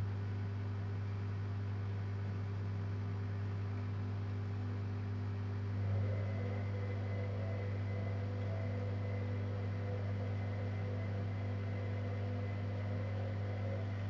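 Zanussi Jetsystem Turbodry ZWD 1000 washing machine humming steadily with a deep, even hum, briefly swelling about six seconds in.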